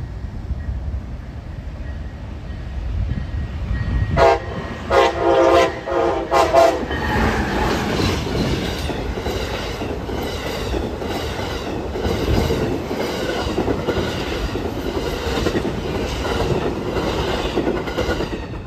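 Amtrak passenger train sounding its horn in a few loud blasts about four seconds in, then rolling past with a steady rumble and a regular clickety-clack of wheels over the rail joints, fading away sharply near the end as the last car clears.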